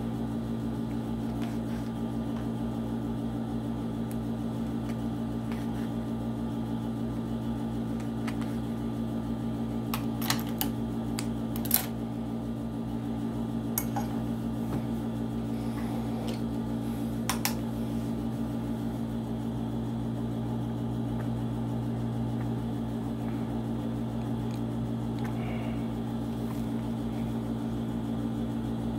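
Steady low electric motor hum, with a few sharp clicks and taps as paper pattern and cloth are handled, clustered between about ten and eighteen seconds in.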